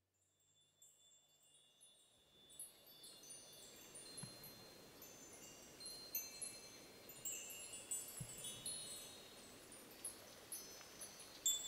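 Wind chimes stirred by a draft, tinkling with many short, high ringing notes that overlap. They are faint and sparse at first and grow busier after about two seconds, over a soft rush of moving air.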